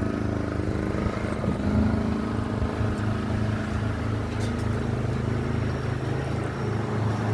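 Steady hum of a portable generator engine running a 6,000 BTU window air conditioner, with the air conditioner's running sound mixed in; it holds even throughout.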